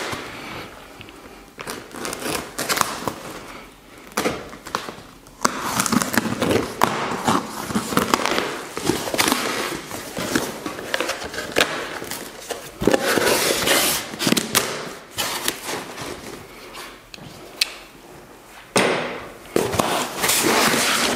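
Large cardboard shipping box being opened by hand: irregular rustling and scraping of cardboard and packing tape, with many short clicks and knocks.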